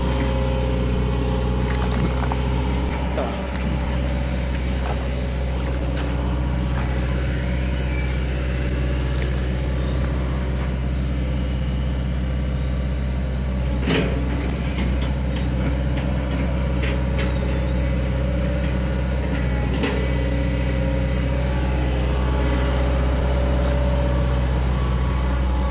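Hitachi EX200 long-arm excavator's diesel engine running steadily at an even pitch, with a few faint clicks scattered over it.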